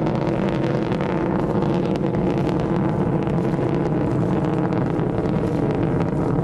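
Rocket engine exhaust from a launch vehicle climbing away: a steady rumble with a dense crackle running through it.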